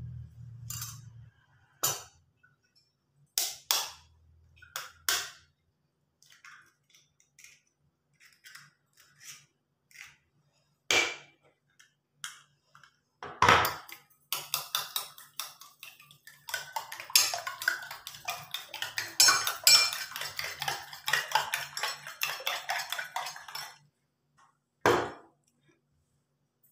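Metal spoon beating egg in a small stainless-steel bowl: a quick, dense run of clinks and scrapes lasting about ten seconds in the second half. Before it, single knocks and clinks of the spoon against the bowl, and one last knock near the end.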